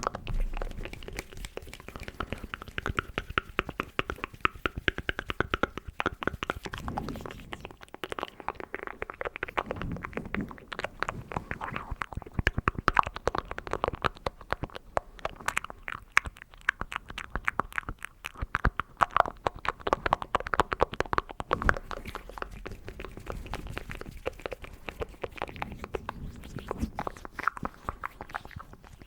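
Close-miked ASMR mouth sounds: a dense, uneven stream of quick wet clicks and smacks, mixed with hand sounds.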